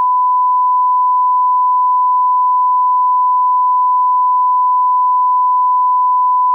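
Emergency alert attention tone: a single loud, pure, steady tone at about 1 kHz, held unbroken.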